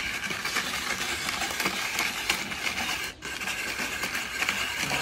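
Small plastic hand-cranked ice shaver grinding a block of ice as its handle is turned: a steady scraping noise, with a brief break about three seconds in.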